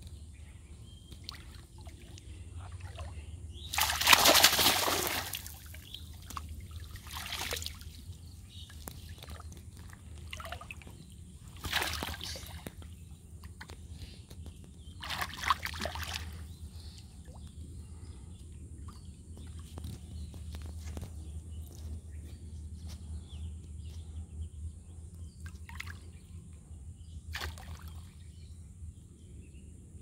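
Pond water splashing and sloshing as a cast net is gathered and worked by hand in waist-deep water, with a few louder splashes, the biggest about four seconds in. A steady low hum runs underneath.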